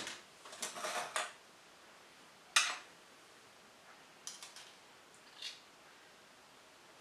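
Metal spoons clinking and scraping as cake batter is spooned from the mixing bowl into cupcake cases: a sharp clink at the start, a quick run of clinks in the first second, the loudest clink about two and a half seconds in, and a few lighter ones later.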